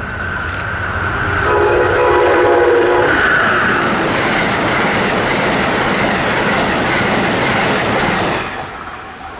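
Amtrak ACS-64 electric locomotive and its coaches passing at speed. The locomotive's horn sounds a multi-note chord for about a second and a half, then the wheels clatter and the coaches rush past. The sound dies away near the end as the last car goes by.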